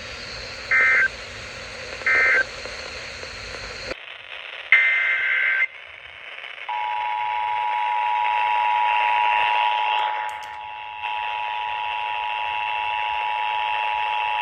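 Emergency Alert System data tones: two short end-of-message data bursts about a second apart close out one alert. After a cut, another single data burst sounds about five seconds in. From about seven seconds in comes the EAS two-tone attention signal, a steady pair of notes that signals the start of a new alert.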